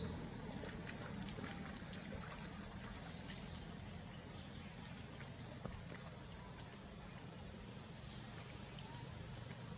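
Steady background noise with a constant high-pitched hum and a few faint clicks.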